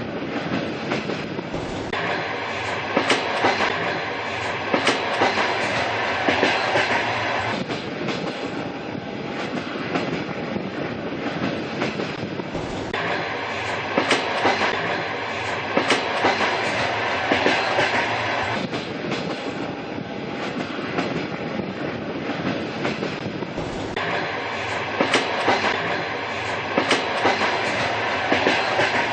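A train running on rails: a steady rumble with wheels clacking over the rail joints in quick groups. The same stretch of sound repeats about every 11 seconds.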